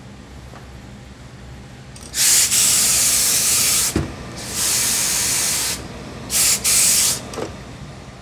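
Hose-fed steam iron blasting steam in four hissing bursts as a suit jacket's hem is pressed: two long ones of about two and one and a half seconds, then two short ones close together. A dull thump comes about four seconds in, between the first two bursts.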